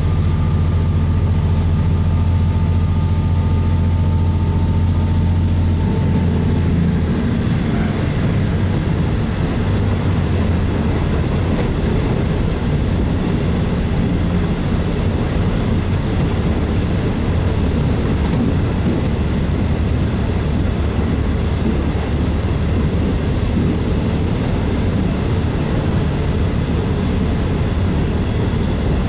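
JR East KiHa 40 series diesel railcar running, heard from on board. A steady engine drone gives way about six seconds in to a rumbling running noise that carries on.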